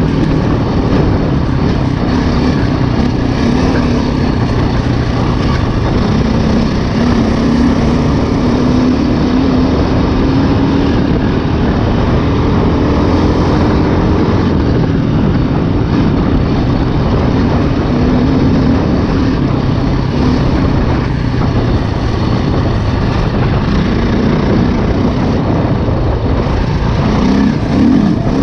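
2008 KTM 530 EXC single-cylinder four-stroke dirt bike engine running under way, its pitch wavering up and down with the throttle, with a brief surge near the end.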